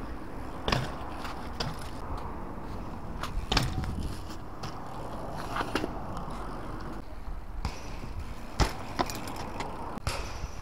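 BMX bike riding over paving: tyres rolling with a steady rumble, broken by several sharp knocks and clatters as the wheels land a small drop off the steps.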